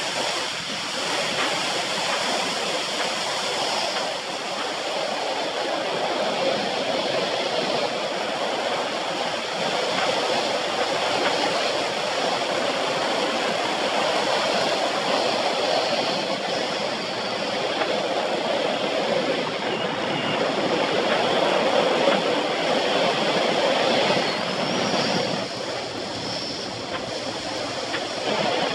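Steady rushing wind noise on the microphone of a camera mounted on a fast-moving bicycle, mixed with the rolling noise of the tyres on asphalt.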